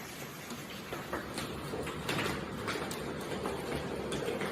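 Steady hiss of heavy rain, with scattered sharp knocks and taps from about a second in.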